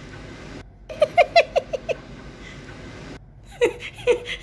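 A woman's high-pitched giggling: a quick run of short notes about six a second, starting about a second in after an abrupt cut, then two shorter laughs near the end.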